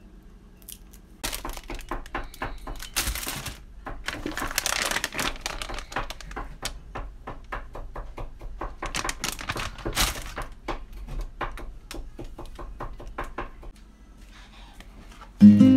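Kitchen handling sounds: a run of quick, irregular knocks and clicks, like a knife chopping garlic on a wooden cutting board, mixed with crinkling of plastic food packaging. Guitar music comes in near the end.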